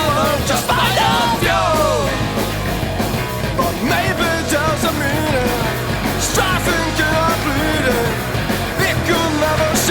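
Loud rock music with a vocal line over a full band.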